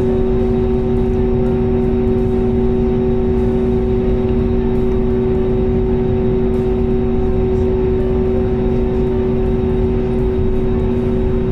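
Jet engines of an Airbus A320 heard inside the passenger cabin at high power around take-off: a steady loud drone with two held hum tones over a deep rumble, unchanging throughout.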